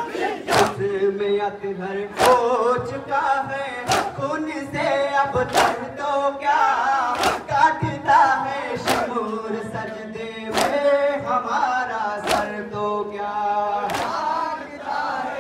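A group of male voices chanting a Shia noha into microphones, with the mourners' matam hand-slaps on bare chests landing together in a steady beat, about one strike every 1.7 seconds.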